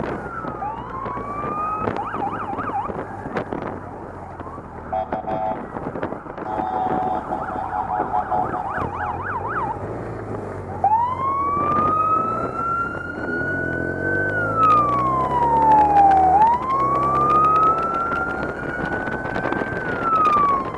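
Police motorcycle sirens: a fast warble a couple of times in the first half, then a wail that sweeps slowly up and down twice through the second half, over motorcycle engines running.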